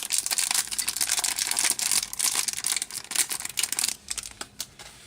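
Small plastic bag of LEGO pieces being torn open and crinkled, then a few sharp clicks near the end as the pieces come out.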